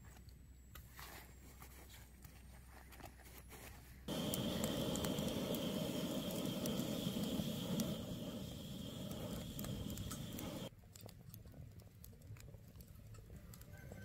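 Charcoal fire under fish grilling on a wire rack: quiet crackling and ticking from the coals, with a louder steady sizzling hiss that starts abruptly about four seconds in and cuts off abruptly near eleven seconds.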